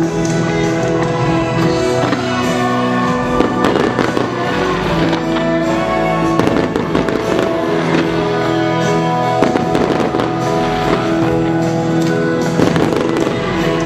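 Aerial firework shells bursting in several clusters over loud, steady show music.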